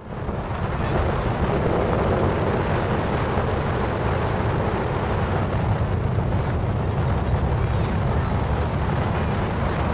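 Steady rumble of a party fishing boat under way, with wind buffeting the microphone.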